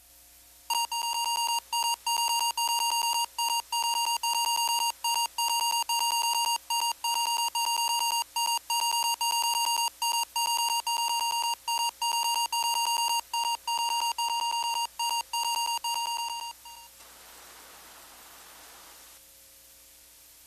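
A steady, high-pitched test tone of the kind recorded at the head of a videotape for level line-up, cut by many brief dropouts. It stops abruptly about three-quarters of the way through, leaving a short burst of tape hiss and then a faint low hum.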